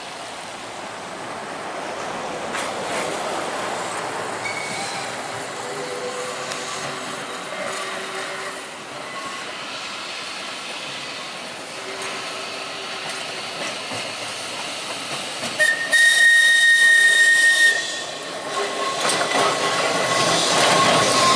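Manx Electric Railway electric tram, a winter saloon car with a trailer, running along the track with wheel and motor noise. About sixteen seconds in, one high whistle blast lasts about two seconds.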